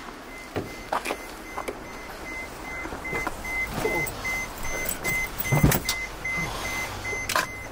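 A person climbing into a passenger van: scattered knocks and rustling from the bag and leather seats, with the loudest thump about five and a half seconds in. A high beep repeats rapidly and steadily throughout, likely a vehicle chime.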